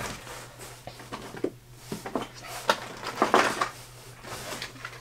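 Rummaging through a cardboard shipping box of packaged fishing tackle: irregular rustling and crinkling of plastic packets against cardboard, with a few sharper crackles in the middle.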